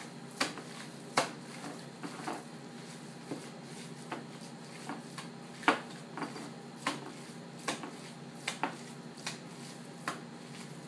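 Wet slaps of ground pork-and-beef patty mixture being handled and pressed between the hands, coming irregularly about once a second with a few in quick pairs. A steady low hum runs underneath.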